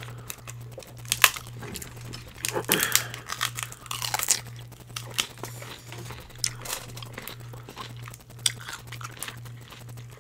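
Close-miked mukbang eating sounds from a seafood boil: irregular crunching, cracking and crinkling as food is handled and chewed. A steady low hum runs underneath.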